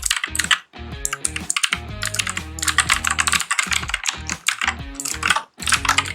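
Rapid typing on a Redgear Shadow Blade mechanical keyboard with clicky blue switches: a dense run of sharp key clicks with brief pauses, over background music.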